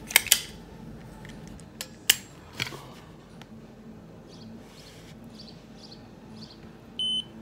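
Handling a fingerstick blood-sugar testing kit: a few sharp clicks in the first three seconds, then faint soft ticks. A short, high electronic beep from the blood glucose meter comes near the end.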